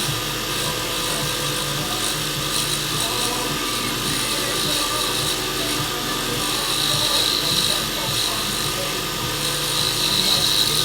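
Wood lathe spinning a stabilized burl pen blank while a carbide turning tool cuts it to shape, a steady hiss of cutting that swells twice in the second half.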